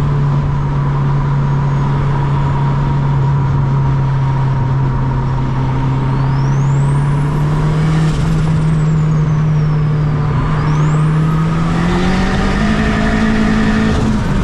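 Turbocharged K-series four-cylinder of a 2007 Honda Accord running hard at a steady engine speed, heard from inside the car over loud road noise; its pitch climbs near the end as the engine revs higher. A faint high whine sweeps up and back down twice.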